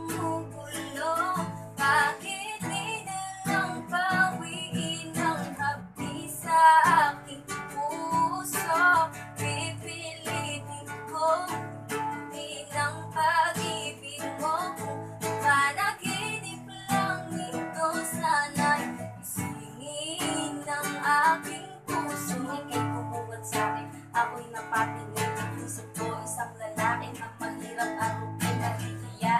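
A female voice singing a Tagalog song to a strummed small acoustic guitar.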